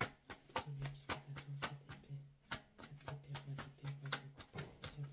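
A deck of tarot cards being shuffled by hand: a quick, irregular run of sharp card clicks and flicks, over a low hum that comes and goes.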